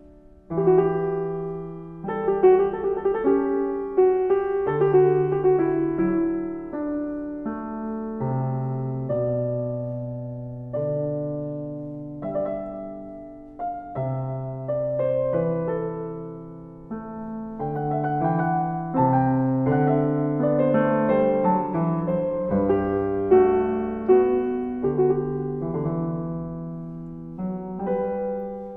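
Solo piano music: a steady stream of struck notes and chords, each fading after it is played.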